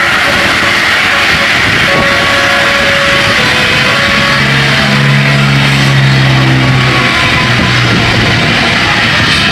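Multi-tone 'telolet' bus air horn sounding a run of held notes: a higher note from about two seconds in, then lower notes held together from about halfway, over loud, noisy traffic.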